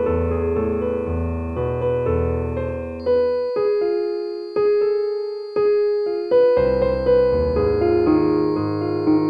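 Slow piano music: chords over low bass notes that thin out in the middle to a few single struck notes fading away, before the bass comes back in. A faint, high, steady tone enters about a third of the way through.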